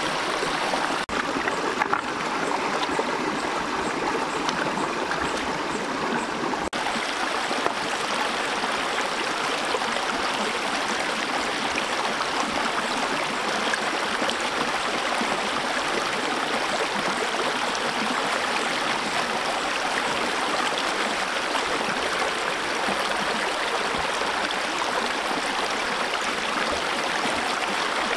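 Shallow rocky stream running over stones: a steady rush and gurgle of flowing water.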